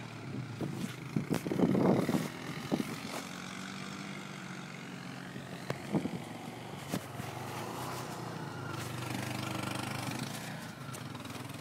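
Quad bike (ATV) engine running steadily as the machine works along a rough gully, swelling louder for a few seconds near the end before dropping back. Knocks and rustles of the camera being handled, loudest about a second or two in, and again around six seconds.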